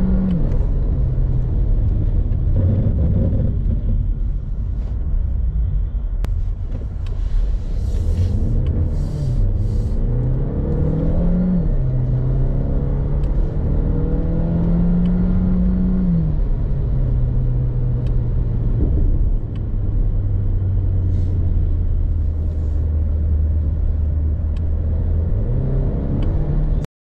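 Renault Clio 1.3 TCe four-cylinder turbo petrol engine heard from inside the cabin, running at high revs while the car slows. Its note holds, rises and drops in steps, settles to a lower steady note about two-thirds of the way through, and cuts off suddenly at the very end.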